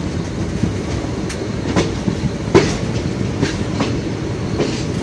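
Train running on the track, a steady rumble broken by irregular clacks of wheels over rail joints, about half a dozen, the loudest about two and a half seconds in.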